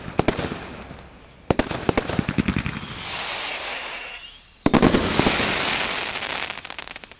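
Brothers Grand Slam firework shots bursting overhead. A few sharp bangs come first, then a loud bang about a second and a half in with a quick run of pops after it. A fizzing crackle follows around the middle. Just before five seconds a big bang sets off dense crackling that thins out near the end.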